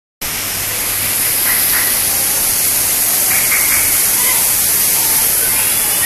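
Torrential rain falling steadily: a dense, even hiss.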